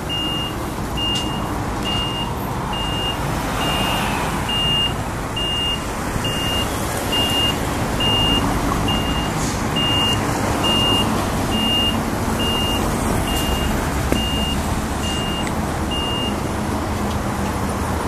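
A heavy truck's reversing alarm beeping, one high single-tone beep about every second, over the low steady running of a truck engine. The beeping stops near the end.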